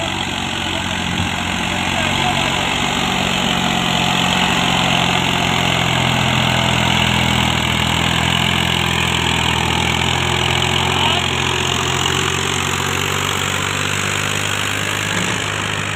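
Massey Ferguson 240 tractor's three-cylinder diesel engine running steadily while pulling a loaded trailer through soft mud. It grows somewhat louder after about two seconds and eases a little near the end.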